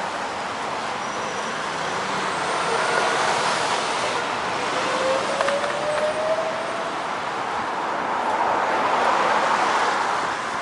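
Road traffic noise: cars passing on a city street, the noise swelling twice as vehicles go by, with a faint rising whine about midway.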